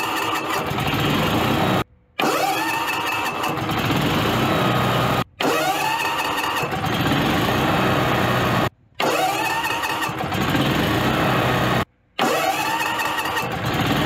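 Generac OHVI standby-generator engine started again and again: five starts in a row, broken by abrupt short gaps. Each time the pitch rises as the engine spins up, then it settles into a steady run. The starter has just been re-shimmed after hanging up on the flywheel teeth, and these starts test whether it now disengages.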